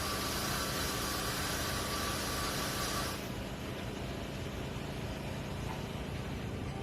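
Steady background noise with a low hum and a hiss. About three seconds in, the higher hiss and a faint tone cut out abruptly, leaving a duller, quieter hum.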